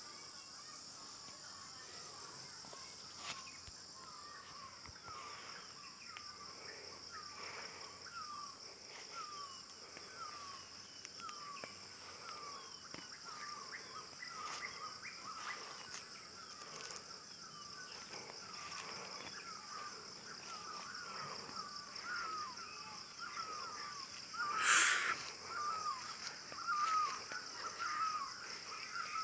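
A bird calling a long series of short repeated notes, about one a second at first, coming faster and louder near the end, over a steady high insect buzz. A brief loud noise cuts in about 25 seconds in.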